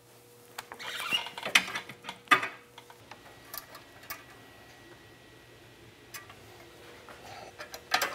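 Steel exhaust springs being stretched with a rod-type spring puller and hooked onto a turbo exhaust inlet pipe. The metal scrapes and rattles, with sharp clicks about one and a half and two and a half seconds in and again near the end.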